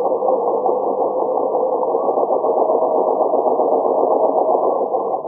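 Domestic sewing machine running steadily at speed, stitching a straight line of stitches, and stopping right at the end. It sounds muffled, with no high end.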